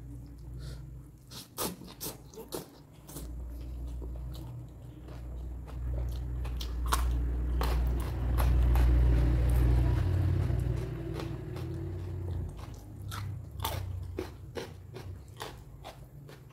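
A person chewing and crunching food close to the microphone, with many sharp crunches and a heavy, muffled chewing sound that swells in the middle and fades near the end.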